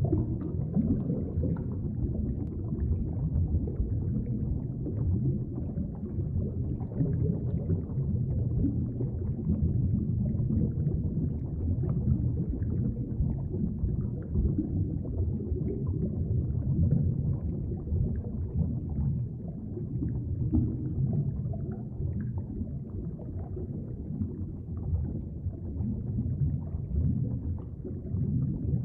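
Creek current heard underwater: a steady muffled low rumble with faint scattered ticks.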